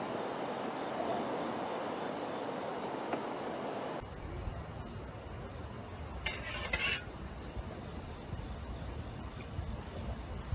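Crickets chirring over a steady hiss. About four seconds in it cuts to wind rumbling on the microphone, with a brief rustle around the middle.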